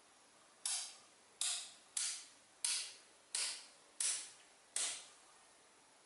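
Blocks of small neodymium magnetic balls snapping together one after another: seven sharp clacks about two-thirds of a second apart, each trailing off briefly.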